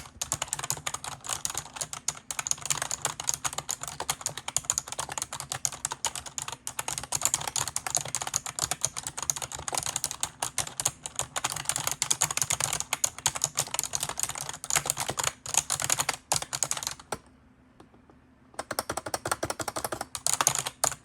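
Fast typing on a keyboard during a typing test: a dense, continuous run of key clicks that stops for about a second and a half near the end, then starts again.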